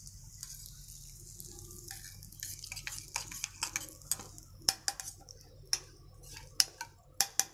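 Steel spoon stirring hot oil and asafoetida in a small steel bowl: soft at first, then scrapes and sharp clinks of metal on metal, getting louder and more frequent in the second half, with a quick run of taps near the end.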